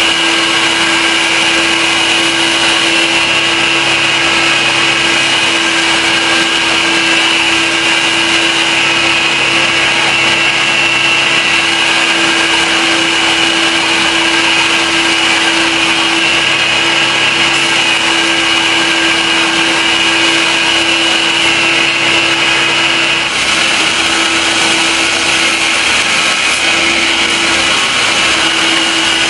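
A power tool running steadily, with a constant hum under a bright, hissing grinding noise.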